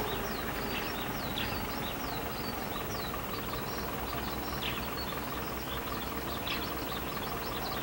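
Small birds chirping in many quick, short calls over a steady low rumble from a distant approaching train.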